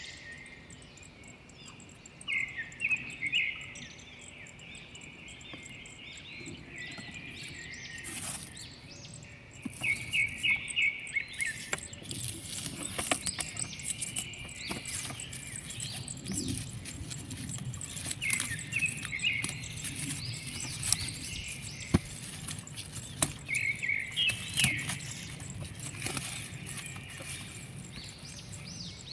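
Birds chirping in short bursts that recur every several seconds, with many small clicks and a low rumble underneath.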